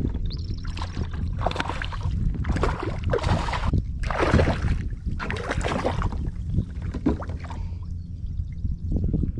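A small hooked redfish splashing in irregular bursts at the kayak's side as it is brought in, over a steady low rumble of wind on the microphone.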